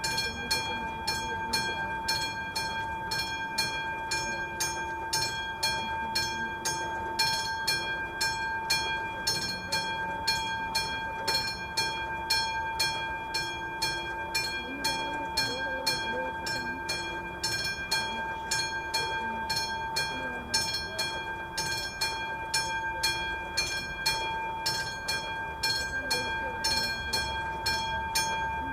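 Level-crossing warning bell (the classic mechanical bell of an AŽD 71 crossing signal) ringing steadily at about two strokes a second, each stroke ringing on. It sounds while the crossing is closed, warning that a train is coming.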